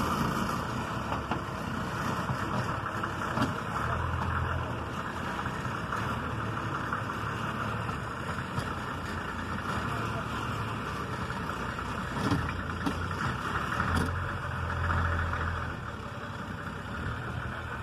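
Engine of an old Ford truck running steadily at low revs under load as it creeps forward, towing a wooden house.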